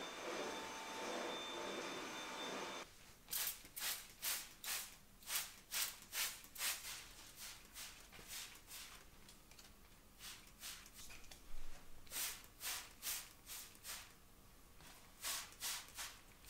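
A cordless stick vacuum cleaner runs with a steady whining hiss, cutting off abruptly about three seconds in. Then a hand-pump spray bottle mists houseplants in a series of short squirts, in runs of about two a second.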